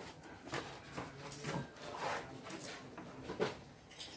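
Irregular knocks and scrapes on wood, about five over four seconds, the sharpest near the end: a person moving about and shifting their feet on a wooden plank floor.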